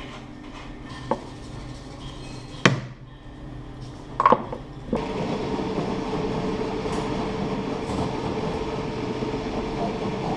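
A few separate sharp metal knocks, the loudest ringing briefly. About halfway through, a steady machine starts running with a constant hum and keeps going.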